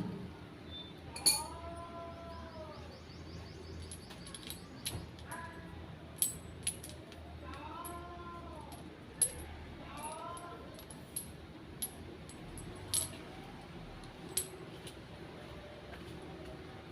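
Scattered sharp metal clinks and taps from metal parts being handled, with a loud hit about a second in. An animal calls repeatedly in the background, a drawn-out call that rises and falls, about five times.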